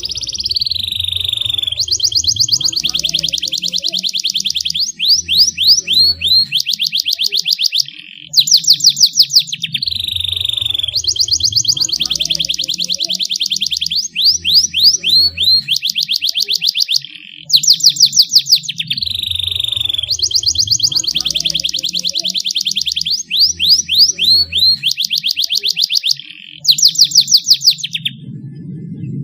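Canary song: loud, clear whistled notes and rapid trills, the same string of phrases repeating about every nine seconds, as in a looped lure recording meant to set caged canaries singing.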